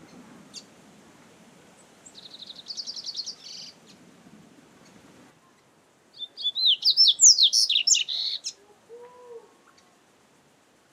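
Double-collared seedeater (coleiro) singing: first a fast, high trill, then a few seconds later a louder phrase of quick notes sweeping up and down.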